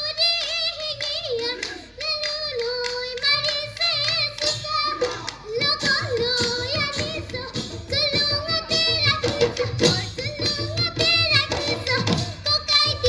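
Live Bihu music: a woman singing a Bihu song into a microphone with vibrato, over Assamese Bihu dhol drums; the drumming grows busier about five seconds in.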